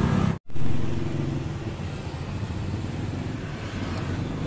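A motor vehicle engine running steadily in the background as a low rumble, with a brief cut to silence about half a second in.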